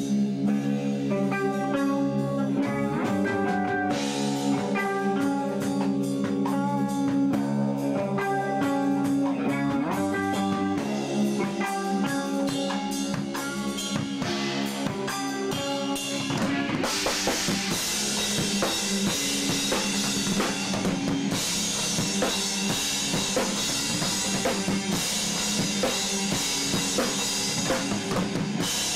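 A rock band playing: electric guitar and bass guitar play a riff of held chords. About two-thirds of the way through, the drum kit and cymbals come in and the full band plays on.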